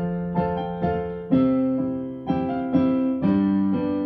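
Digital piano playing a slow melody with chords, notes struck about every half second and left to ring: a Christmas song being rehearsed.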